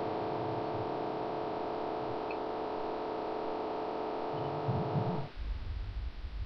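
Steady electrical hum that cuts off suddenly about five seconds in. A low rumble takes over.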